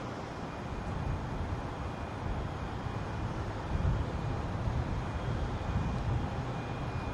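Steady low rumble of distant aircraft at an airfield, with wind buffeting the microphone.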